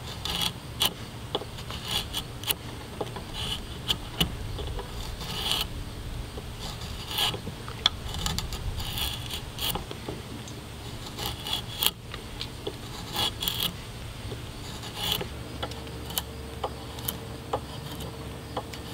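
Mora draw knife shaving an oak handle blank: irregular scraping strokes of the blade through the wood, with short clicks.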